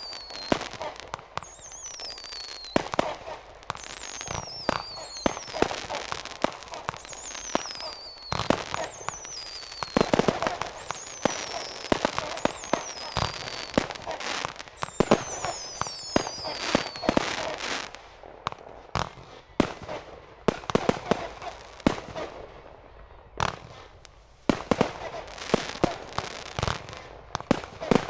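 Consumer (Class C) aerial fireworks going off: a rapid string of launch thumps, bursts and crackling. Through the first two-thirds, whistles falling in pitch come about one a second. There is a brief lull about three-quarters through before the bangs pick up again.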